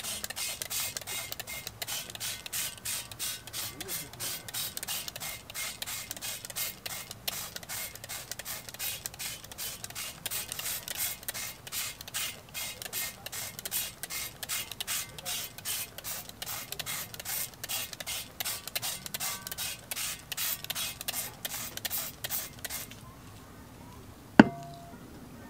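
Trigger spray bottle of griddle cleaner squirted over and over onto a cast-iron griddle, a rapid run of short hissing sprays several a second, coating the pan in foam. The spraying stops near the end, followed by a single sharp knock.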